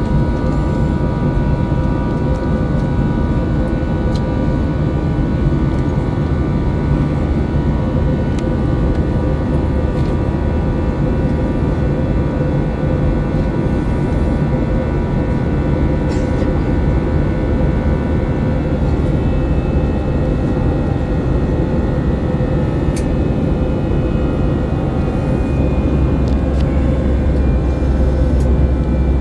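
Airbus A321-200 heard from inside the passenger cabin: a steady drone of jet engines and airflow with thin whining tones over it. A deeper rumble swells about three-quarters of the way through.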